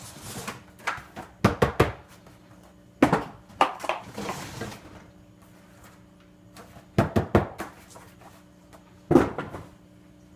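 Packing spacers being pulled from a 3D printer's shipping box and handled: irregular bursts of knocks, scrapes and rustling, the loudest knock about nine seconds in.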